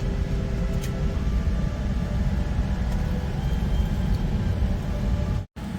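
Steady low rumble inside the cabin of a Boeing 787 airliner before takeoff, with no announcement playing.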